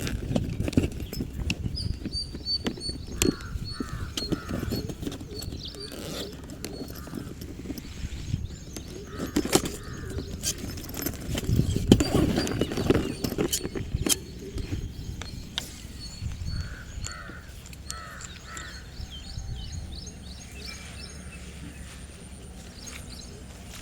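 Crows cawing in short runs of two or three calls, with small birds chirping, over scattered knocks and clicks; a louder burst of low rustling noise comes about halfway through.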